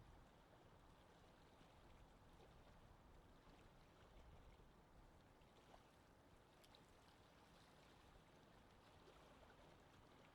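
Faint lake wind ambience: a low, steady wind rumble with light water noise and a few small ticks around the middle.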